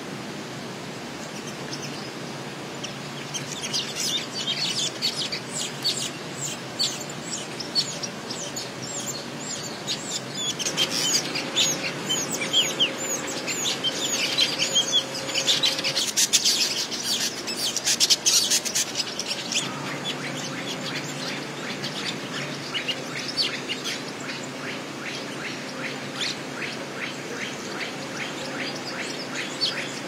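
Village weavers chattering: a busy stream of rapid, high-pitched chirps and buzzy notes that builds a few seconds in, is densest past the middle, then thins to a fainter quick ticking, over a steady hiss.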